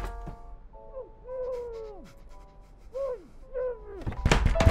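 A woman crying in several long wails, each falling in pitch, over faint music. A loud thud comes near the end.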